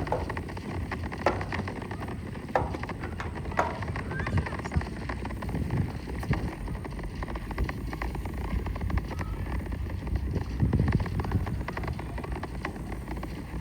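Distant Space Launch System rocket, its solid rocket boosters and main engines still firing: a low rumble broken by irregular crackles and pops.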